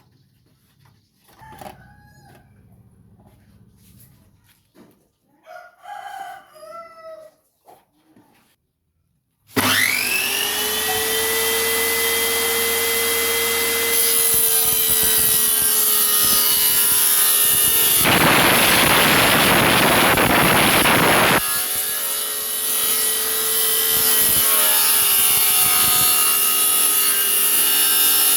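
Circular saw with a 7-inch 24-tooth blade, mounted as a table saw, switched on about a third of the way in: its motor whines up to speed and runs steadily. Past the middle the blade cuts through wood for about three seconds, a loud rasping noise, then the saw runs free again.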